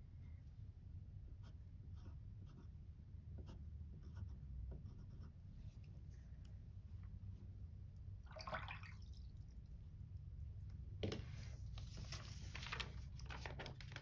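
Faint scratching and ticking of a pen nib writing on thin Tomoe River paper. About eight seconds in there is a short swish, and near the end a longer rustle and slide as the sheet is shifted across the table.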